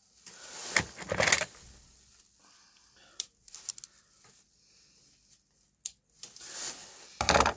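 Rustling of a plastic bag and a cloth being handled, in a few short bursts, with a couple of sharp clicks in between.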